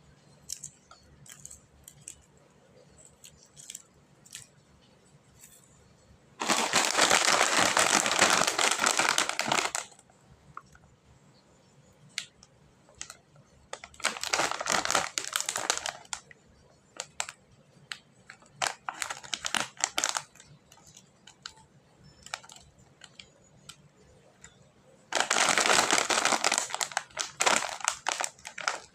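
Plastic snack wrappers crinkling as they are handled and opened, in four loud bursts of one to three seconds. Between them come quieter stretches of small clicks and rustles.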